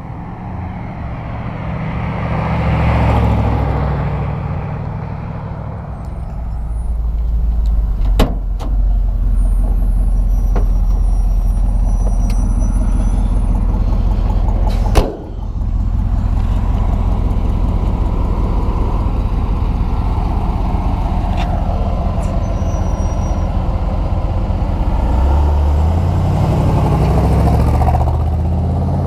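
A vintage Chevrolet pickup's 350 V8 with automatic transmission. It swells past once near the start, then runs steadily under way, heard close from a camera mounted on the truck. There is a sharp knock about halfway.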